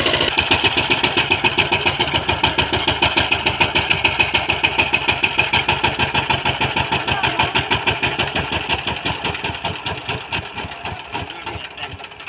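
Two-wheel power tiller's single-cylinder diesel engine running with a rapid, even chugging. Over the last few seconds it slows and quietens, its beats spreading further apart.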